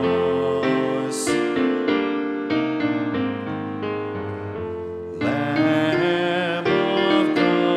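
Church piano music with slow sustained notes; about five seconds in, a singing voice with vibrato comes in over the piano and the music gets louder.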